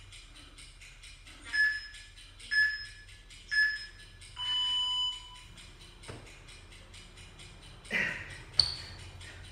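Interval timer counting down: three short beeps about a second apart, then one longer beep at a different pitch marking the start of the next work interval. Near the end come a couple of thuds, the sharpest one loud, as the exerciser drops onto his hands on the tiled floor.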